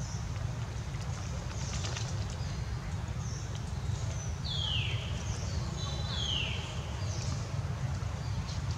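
Outdoor ambience: a steady low rumble with a few high chirps that fall in pitch, the two loudest about four and a half and six seconds in.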